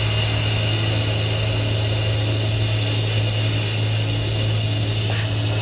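Matsuura MC500V vertical machining center milling a metal part, its spindle and cutter giving a steady low hum, over a continuous hiss of compressed air from a blow gun clearing chips at the cutter. The highest part of the hiss drops away about five seconds in.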